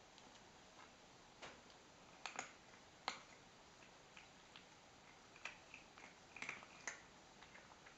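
A cat eating from a plastic bowl: scattered small clicks and crunches at irregular intervals over near silence.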